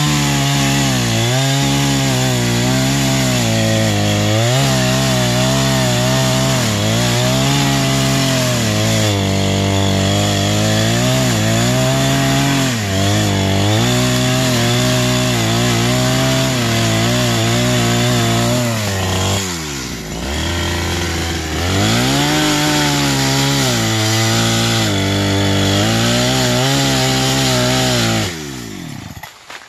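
Petrol chainsaw running hard and cutting wood, its engine pitch wavering up and down as the chain bites. Two-thirds of the way in the revs drop sharply and pick up again, and near the end the engine winds down and stops.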